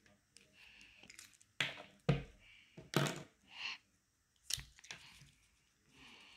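Felt-tip pens knocking against a wooden tabletop as one marker is put down and another picked up, several sharp knocks, with faint scratching of a marker tip on paper between them.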